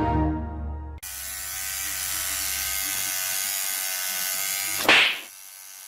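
Electric toothbrush buzzing steadily from about a second in, cut across near the end by one brief loud burst of noise.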